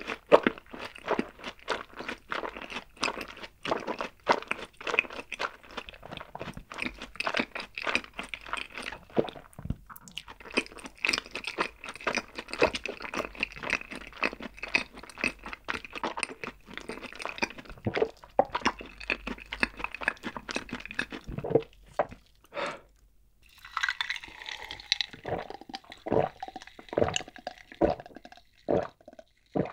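Close-miked chewing of a mouthful of crunchy fried food, with many small crunches. After a short pause near the end come gulps from a glass mug of an iced drink, about two swallows a second.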